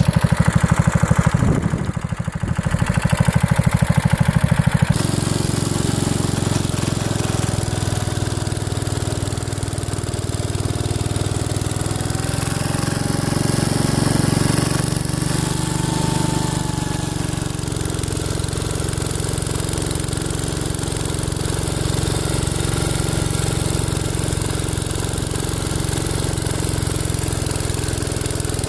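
The rebuilt Kohler 241 single-cylinder engine of a 1968 Gravely Commercial 10A runs steadily under load, driving the snow cannon blower through deep snow. About five seconds in, the sound becomes smoother and more even.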